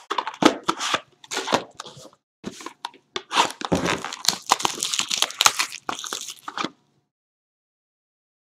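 Shrink wrap on a sealed trading-card box being torn off and crinkled, with the cardboard box handled as it is opened. A rapid, irregular run of crackles and tears that stops about two seconds before the end.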